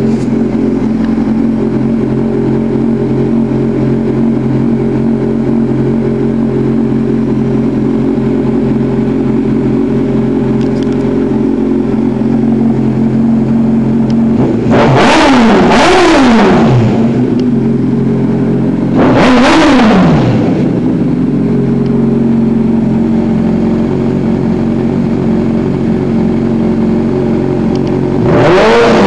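2006 Honda CBR1000RR's inline-four engine idling steadily while warming up. It is blipped with quick throttle revs that rise and fall: twice in quick succession about halfway through, once more a few seconds later, and again near the end.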